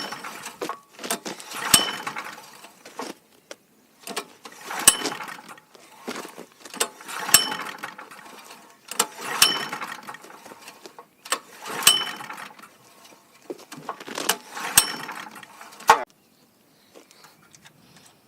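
Honda EM3800SX generator engine being cranked over about seven times, each try a short whir of about a second that starts with a sharp click and dies away, never catching. It is choked and not starting.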